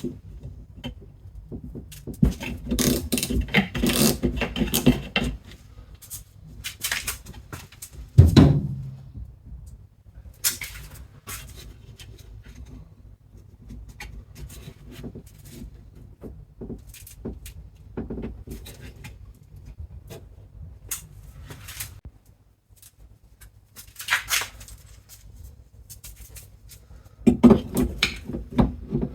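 Hand-tool and handling noise from work on a car's rear wiper arm and its 10 mm nut: scattered clicks, knocks and rustling, with one loud thump about eight seconds in.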